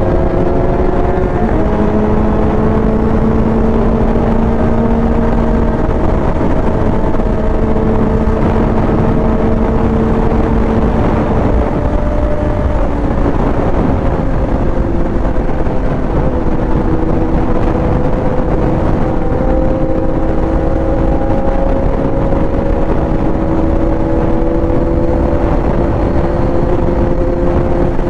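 Motorcycle engine running steadily at cruising speed, heard from the rider's seat over a heavy, constant wind rumble on the microphone. The engine note holds fairly even, stepping up in pitch once about a second and a half in and settling a little lower around the middle.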